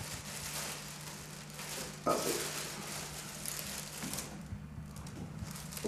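A bag rustling and crinkling as it is handled and opened, with a slightly louder crackle about two seconds in, over a steady low hum.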